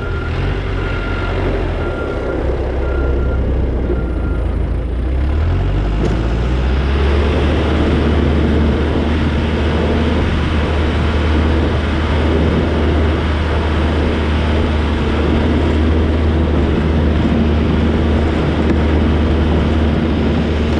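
Diesel engine of heavy snow-clearing equipment running, with a backup alarm beeping about once a second for the first few seconds. About six seconds in the engine revs up and then runs steadily at the higher speed.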